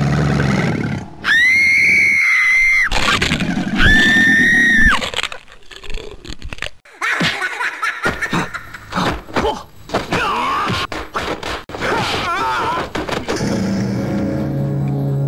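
Film soundtrack with music and sound effects: two long high-pitched screams, each rising in, held steady and dropping away, in the first five seconds, followed by a busy run of clicks, knocks and short wavering cries.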